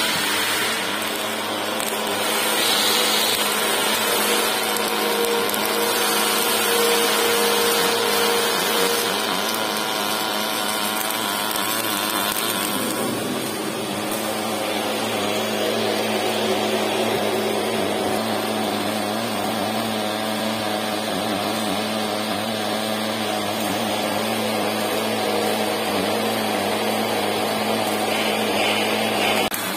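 Automatic MAG overlay welding machine running, its arc giving a steady hiss with machine hum as it clads a hydraulic cylinder rod with stainless steel wire. The sound changes in character about halfway through.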